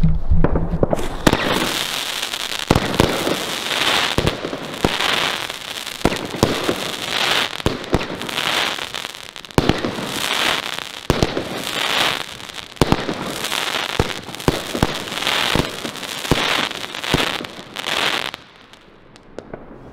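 A 13-shot 30 mm Argento Scorpio firework battery firing shot after shot. Each shot goes off with a sharp bang and is followed by a dense crackling from its crackling tails and crackling palm and star bursts. The volley dies away near the end.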